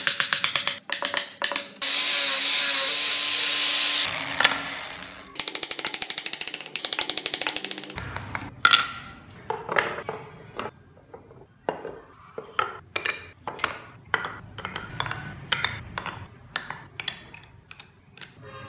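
Tools working wood: a few clicks, then about two seconds of loud grinding noise from a power tool. A stretch of rapid clicking follows, then a run of sharp taps, about two to three a second, to the end.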